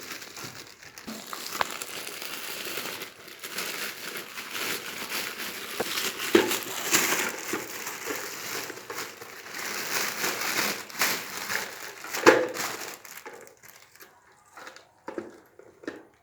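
Packaging crinkling and rustling as it is handled and unwrapped, with several sharper crackles, dying down to a few small handling noises near the end.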